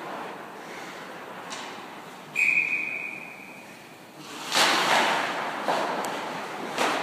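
Referee's whistle: one short, steady high blast of about a second, about two and a half seconds in. It is followed from about four and a half seconds by a loud surge of rushing game and crowd noise with a few sharp knocks.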